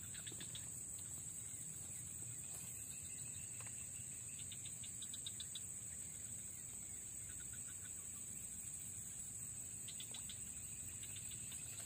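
Steady high-pitched insect drone from the grass and scrub, with a few short runs of quick chirps, near the start, about five seconds in and again near the end.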